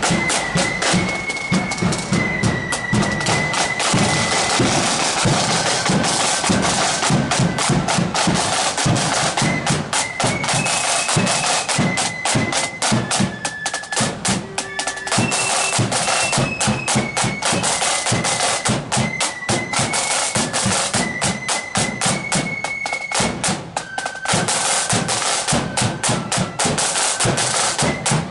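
A marching flute band playing a tune: a shrill flute melody stepping between high notes over fast, dense snare drumming and a bass drum beat.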